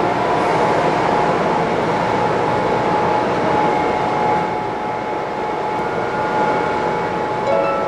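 Subway train noise at the platform: a steady rumble with a thin, high whine held throughout, and a few short higher tones stepping up near the end.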